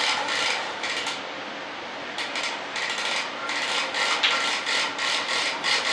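Plastic vacuum bag over fiberglass flap lay-ups crinkling in a fast, irregular run of short rustles, denser from about two seconds in, as the vacuum draws the bag down.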